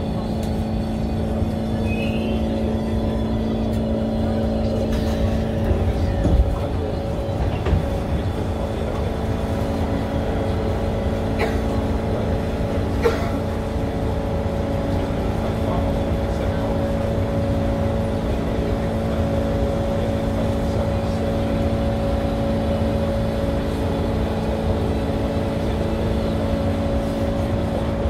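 SMRT Kawasaki C151 MRT train running at steady speed, heard on board: a constant rumble with steady humming tones. There is a short knock about 6 seconds in and brief clicks around 11 and 13 seconds in.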